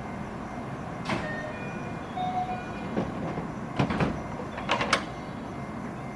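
JR 207 series train doors closing: a few short chime tones from the door chime, which sounds abnormal on this car, then the sliding doors knock shut in several sharp clunks about three to five seconds in, over steady station background noise.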